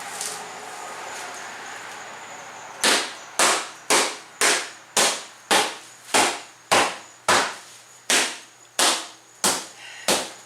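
Repeated hammer-like blows on a duct-taped car windshield, about fourteen sharp strikes at nearly two a second that begin a few seconds in, breaking the glass up without it shattering into pieces.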